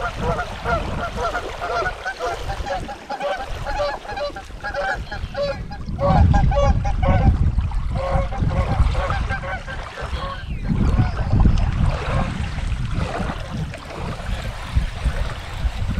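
Geese honking over and over in short repeated calls, most densely in the first ten seconds, with wind rumbling on the microphone.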